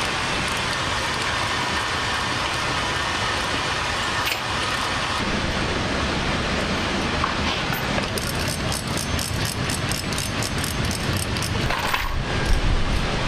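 A motor vehicle driving: steady engine and road noise, with a quick run of clicking or rattling about two-thirds of the way through and a low thump near the end.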